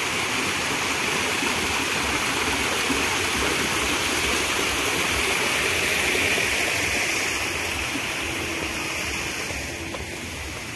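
Water pouring from a small man-made ledge waterfall and cascading down a rock-lined channel: a steady rushing splash that grows fainter over the last few seconds.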